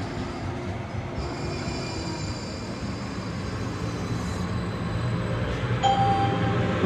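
Light rail train running: a steady rumble and rattle that slowly gets louder, with a brief steady tone near the end.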